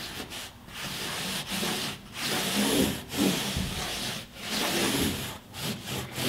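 Felt-tip marker rubbing across cardboard as a curved line is drawn, in a series of short scratchy strokes with brief pauses between them.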